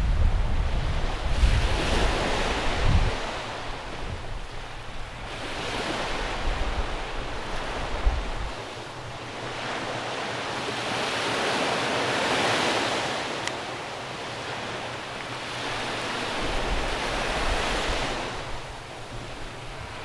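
Small sea waves breaking on a sandy beach and washing up the shore, the surf swelling and fading four times, about every five seconds.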